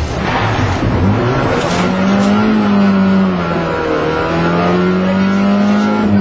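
Rally car engine heard from inside the cabin, accelerating hard after a bend. The revs climb, sag briefly around four seconds in, climb again, and drop sharply near the end as the next gear goes in. Tyre and road noise runs underneath.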